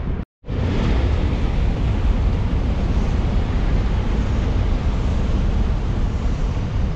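Shinkansen bullet train running along a viaduct, a steady rushing rumble heaviest in the low end, mixed with wind buffeting the microphone. There is a brief drop-out to silence just after the start.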